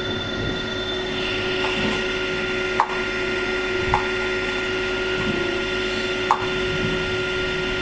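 A knife cutting boiled potatoes in a plate, with three short clicks of the blade against the plate, the first nearly three seconds in. A steady background hum runs underneath.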